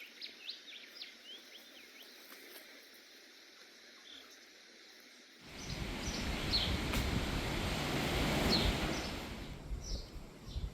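Small birds chirping in a quiet outdoor setting. About halfway through, a loud rushing noise with a deep rumble sets in suddenly, swells, then eases near the end.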